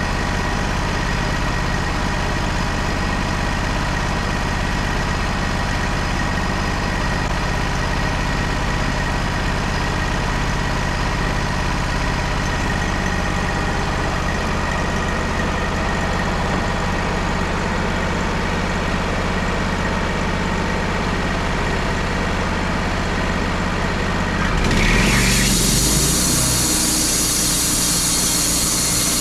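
Portable bandsaw sawmill engine running steadily. About 25 seconds in the sound changes abruptly: it grows louder and a wide, high whirring hiss takes over.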